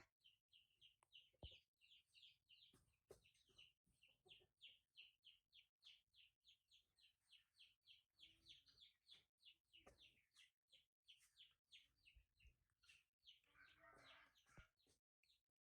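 Faint, high, short chirps repeated steadily, about three or four a second, from a small animal. A brief, noisier sound comes near the end.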